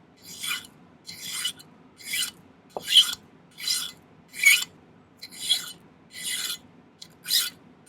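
Hand file rasping across sterling silver half-round wire in steady back-and-forth strokes, about ten of them, each a short high-pitched scrape with a brief pause between.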